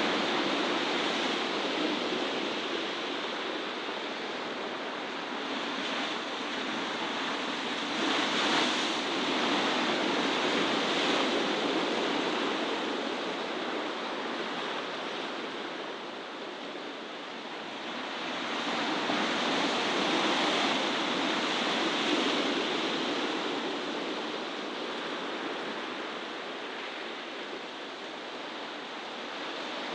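Steady outdoor rushing noise, like wind or distant surf, with no distinct events. It swells about a quarter of the way in and again a little past the middle, then eases.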